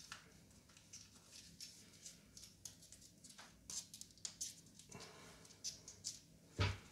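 Faint, scattered clicks and rustles of a wristwatch being handled and its stiff new strap fastened on the wrist, with a short low thump near the end.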